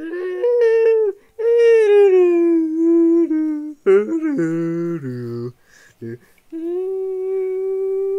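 A person humming a wordless melody in imitation of an orchestral film score, holding long notes with short breaks between phrases. A lower hummed line sounds alongside for a moment midway.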